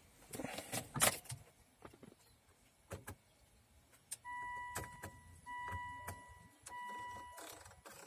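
Plastic clicks of buttons and the power knob being pressed on a Volvo XC90 radio head unit, then three long electronic beeps on one steady pitch from about four seconds in, the last one shorter, sounding as the knob is pressed; the beeping goes with the radio's fault.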